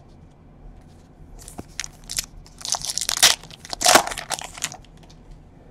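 Foil trading-card pack wrapper crinkling and tearing as it is opened, in a quick run of crackles that is loudest about three to four seconds in.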